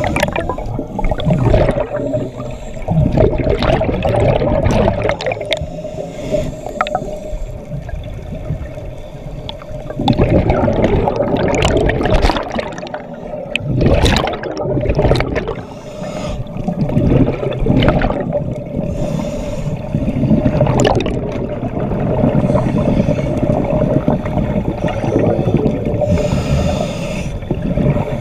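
Muffled underwater audio picked up by a submerged camera: water rumble with irregular gurgling surges of bubbles from scuba divers breathing, over a steady hum.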